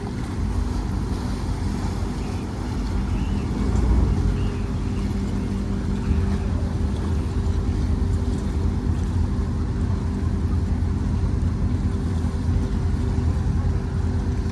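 Engines of a Trinity Yachts superyacht running while it manoeuvres to dock: a steady low rumble with a faint steady hum above it.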